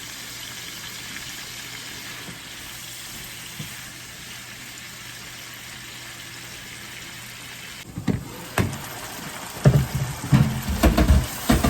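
Vegetable sauce sizzling in a pan with a steady hiss; about eight seconds in, a spoon starts stirring, knocking and scraping against the pan.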